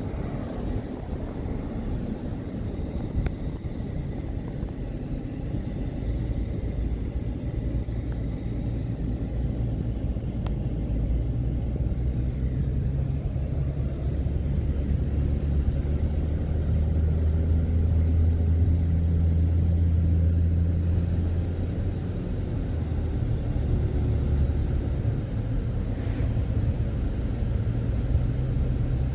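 A car's engine and road rumble heard from inside while driving. It swells in the middle and eases off near the end.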